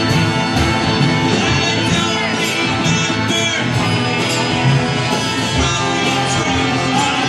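Live rock band playing: electric guitars and drums, with some singing.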